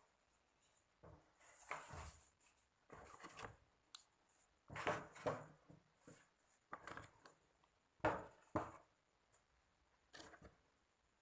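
Irregular short bursts of scraping and rustling, about a dozen, with a couple of sharp clicks, as small objects are handled.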